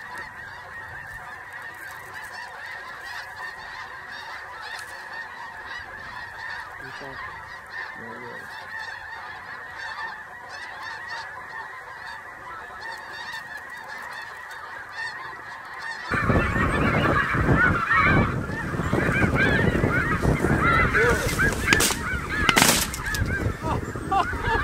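A large flock of snow geese calling, many high honks overlapping into a steady chatter. About two-thirds in the calling turns much louder and closer, with a low rumble underneath, and two sharp cracks about a second apart come near the end.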